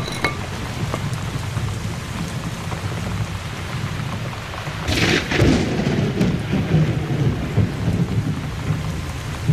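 Steady rain with low rumbling thunder, and a loud crash about five seconds in that fades over roughly a second.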